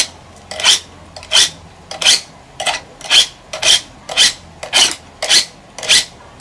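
A blade being sharpened by hand: steady back-and-forth scraping strokes of metal on an abrasive, about three every two seconds.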